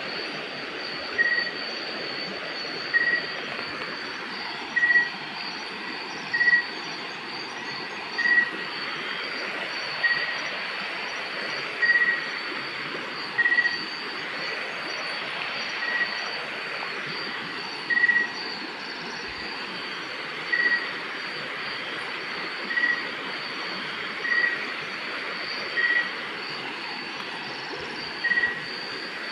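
Night-time outdoor chorus: a steady high-pitched insect trill, with a short chirp repeating about every one and a half to two seconds.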